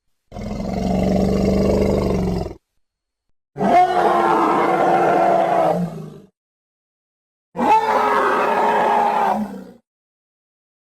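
Predator (Yautja) creature sound effects: a low, rumbling growl lasting about two seconds, then two matching roars of about two and a half seconds each, with silence between them.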